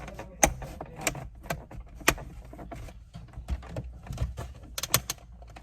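Sharp plastic clicks and knocks from a Mercedes-Benz roof light housing being pushed up and snapped back into the headliner. They come irregularly, about ten in all, with the loudest about half a second and two seconds in.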